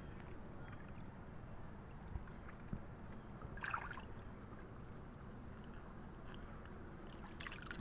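Faint water sloshing as a collapsible netted crab trap is lowered into shallow creek water, with a short splash about halfway through and another near the end.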